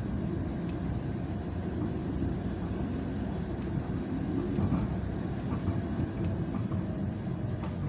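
TTC Bombardier Flexity Outlook streetcar in motion, heard from inside the passenger cabin: a steady low rumble of the car running along the rails.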